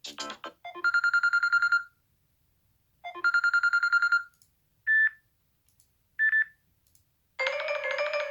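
Samsung Galaxy Note8 built-in ringtones previewed one after another, each cut off as the next is chosen. A fast pulsing electronic trill plays twice, then two short single beeps, then a fuller melodic ringtone starts near the end.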